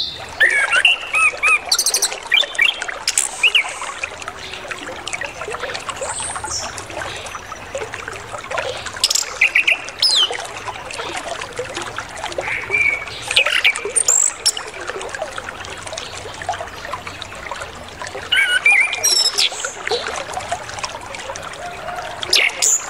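Orange-headed thrush singing in short, varied phrases of whistles and trills packed with mimicked notes, over a steady trickle of flowing water.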